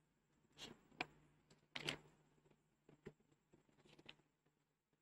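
Near silence with about five faint handling clicks and rustles, the loudest a little under two seconds in, as a scripture passage is being looked up.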